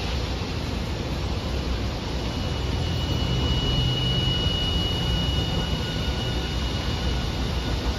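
Hiroden 5200-series Green Mover APEX low-floor tram pulling away from the platform: a steady rumble with a thin high whine that holds from about two seconds in until near the end.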